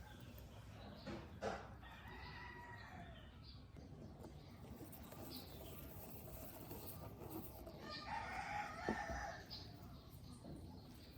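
Faint background animal calls, likely a bird: a drawn-out call about two seconds in and a longer, louder one of about a second and a half near the end. Two sharp clicks sound over a low steady hiss.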